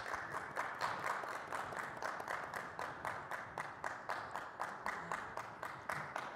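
Audience applause, many hands clapping in a dense, even stream that stops abruptly at the end.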